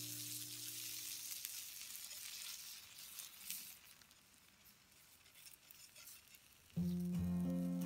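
Chicken, tomato and onion slices sizzling on a hot stone slab over a fire, a steady high hiss. Background music fades out about a second in and starts again loudly near the end.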